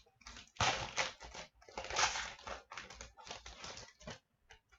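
Foil wrapper of a hockey card pack crinkling and tearing as it is opened by hand: a run of irregular rustles, loudest about half a second and two seconds in.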